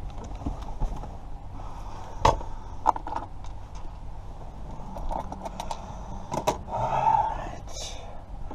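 Light metallic clicks and taps from small lock parts and tools being handled while an ignition lock cylinder is worked on, with a brief scraping rustle near the end.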